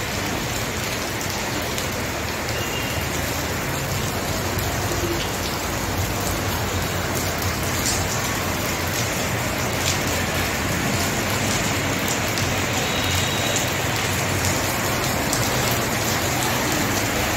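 Steady rain falling on a paved courtyard, an even hiss with scattered drips and splashes, growing slightly heavier.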